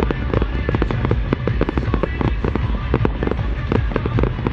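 Small aerial firework shells bursting in a rapid-fire sequence, a dense run of sharp bangs and cracks, several a second, over a steady low rumble.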